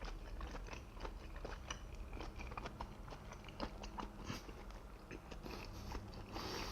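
Close-up mouth sounds of a person chewing and eating steamed scallop: many small wet smacks and clicks.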